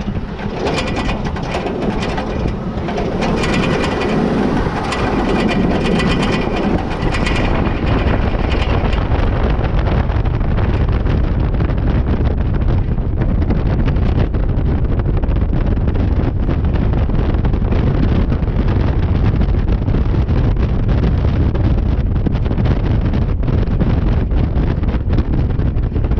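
Wind rushing and buffeting over a side-mounted camera's microphone as a Toyota Land Cruiser 100 series accelerates across sand, with the low rumble of its engine and tyres underneath. It builds in the first few seconds and then holds a steady rush at speed.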